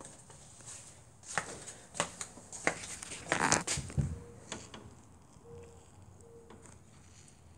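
Handling noise: a series of sharp clicks and taps, with a brief rustle and a dull thump about halfway through, then only faint background.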